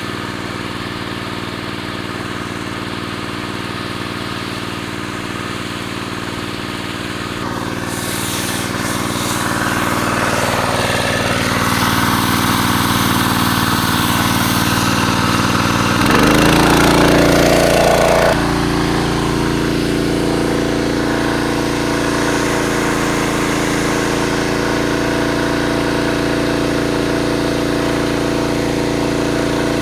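Small petrol pump engine running steadily at constant speed. A rushing noise joins it about 8 seconds in and fades a few seconds later. About 16 seconds in the sound changes abruptly and is louder for about two seconds, then settles back to a steady engine note.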